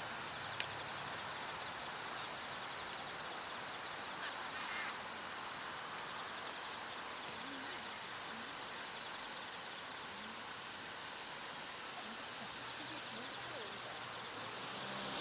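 Steady outdoor hiss of water and air, with a sharp click about half a second in and faint, scattered calls of waterfowl through the second half.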